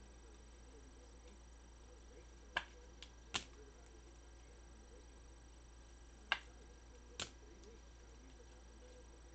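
Four short clicks of trading cards and plastic top loaders being handled, over a faint steady low hum.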